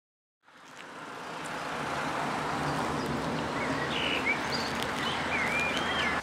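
A steady low hum and rush of an idling vehicle engine, fading in over the first second or so, with birds chirping a few times over it in the second half.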